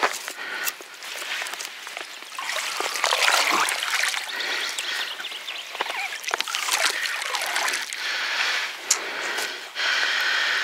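Water trickling and splashing off a fish trap as it is hauled up and handled at the river's edge. It comes unevenly, in surges, with a few small knocks, and gets louder about two and a half seconds in.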